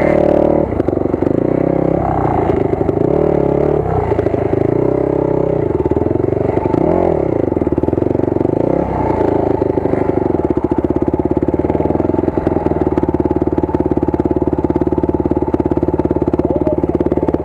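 Enduro motorcycle engine running at low speed, its revs dropping and rising a few times in the first half, then idling steadily from about ten seconds in.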